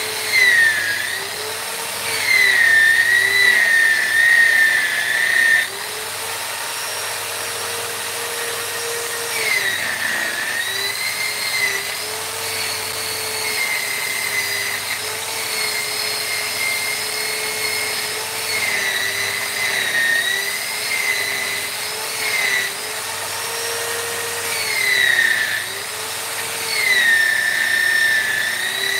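High-speed electric rotary carving tool running on wood, a steady whine whose pitch dips and recovers again and again as the load on the bit changes.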